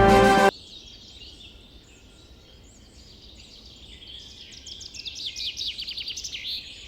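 Orchestral music cuts off about half a second in, leaving outdoor ambience with wild birds calling. Near the end a bird gives a quick run of short, high, falling chirps, several a second.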